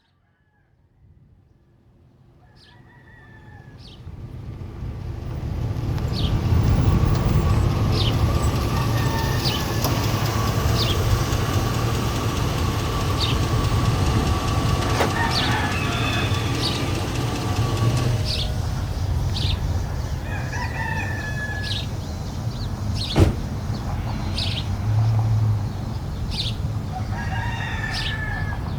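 Farmyard morning sounds fading in: roosters crowing and small birds chirping repeatedly over a steady low rumble, with one sharp click partway through.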